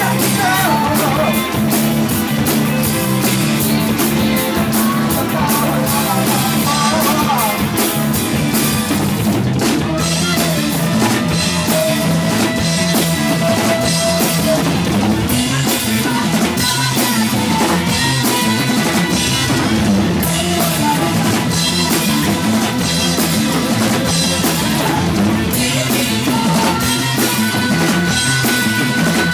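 Rock band playing live: drum kit, electric guitar and a woman singing, with a long held vocal note about halfway through. The audience-camera recording is overloaded and distorted.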